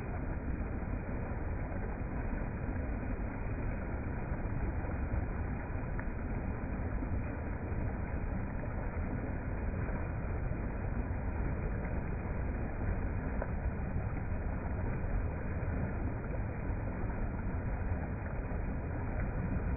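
Steady rush of a fast-flowing river, a deep even noise with no breaks.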